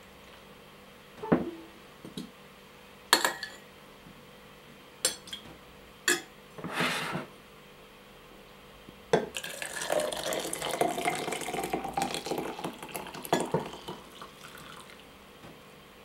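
A few separate clinks and knocks of a spoon and tapioca pearls against a tall drinking glass. Then, about nine seconds in, milk tea is poured from a saucepan into the glass for about five seconds, a splashing stream whose pitch rises as the glass fills.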